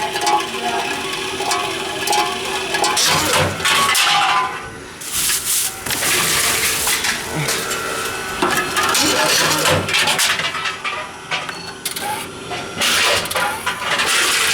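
Tomra T-53 reverse vending machine taking in returned drink containers: repeated clattering and clinking as bottles and cans are fed in and drop through, over a steady hum.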